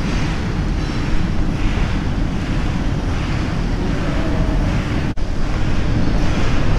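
Loud, steady rumble and rustle from a concealed body-worn camera's microphone rubbing against clothing, swelling about every three-quarters of a second as the wearer walks. There is a very brief dropout about five seconds in.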